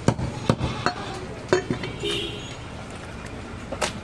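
Cleaver chopping goat meat on a wooden log chopping block: a handful of sharp, irregular chops, four in the first two seconds and one more near the end.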